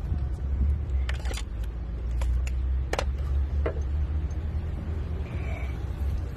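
A few sharp metallic clicks and knocks from the electric scooter's disc-brake pads being handled and fitted, over a steady low rumble.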